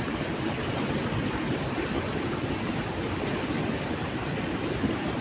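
Water rushing steadily through a drainage ditch, an even unbroken noise.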